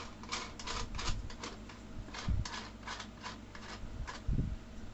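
Irregular sharp clicks, several a second, with a couple of dull thumps, as cat tree parts are twisted and screwed together by hand.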